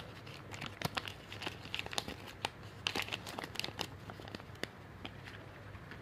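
Thin plastic toy wrapper from a Kinder Joy egg crinkling as hands open it, a dense run of sharp crackles that thins out near the end.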